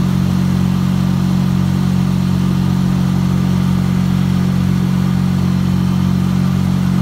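Small outboard motor on a canoe running at a steady cruising speed, a constant low drone that holds one pitch.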